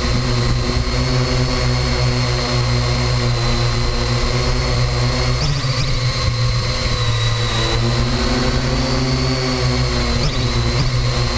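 Parrot AR.Drone 2.0 quadcopter's electric motors and propellers running steadily in flight, heard from the camera on the drone itself: a high whine over a low hum. The pitch shifts briefly about five and a half seconds in and again near ten seconds, as the motors change speed.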